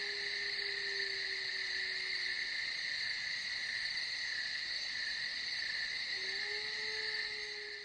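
A steady high chirring like a chorus of night insects, with a low held tone that ends about two and a half seconds in and comes back about six seconds in; everything fades out near the end.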